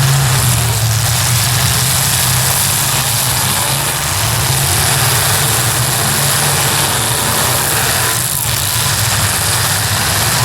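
Demolition derby cars' engines running together as a loud, steady low drone.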